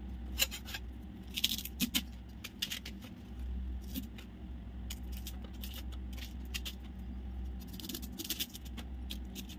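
Hands cleaning a fresh bamboo shoot: irregular sharp clicks and scrapes as it is peeled and handled, bunched about a second and a half in and again near the end, with metal bangles clinking on the wrists and a steady low hum underneath.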